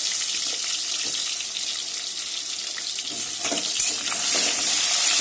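Potato chunks sizzling as they fry in hot oil in an aluminium kadai, with a metal spatula scraping and turning them about three seconds in; the sizzle grows louder near the end.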